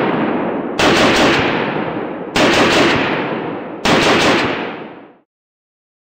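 CZW 556 assault rifle in 5.56×45 mm firing three short bursts of automatic fire, a few rapid shots each, about a second and a half apart. Each burst echoes away into the next. The sound cuts off suddenly about five seconds in.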